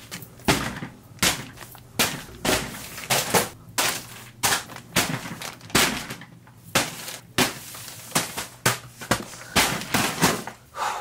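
Shipping packages, padded envelopes and plastic mailers, landing one after another on a pile: a quick, uneven run of sharp slaps, about two a second.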